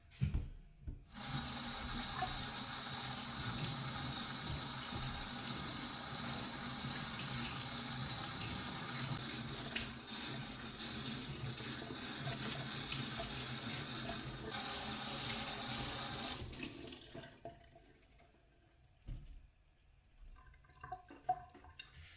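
Water running from a tap into a sink in a steady rush, which stops about three-quarters of the way through; a few small knocks follow.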